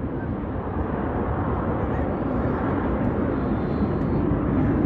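Jet engine noise from the US Navy Blue Angels' F/A-18 Super Hornets flying in formation, growing steadily louder.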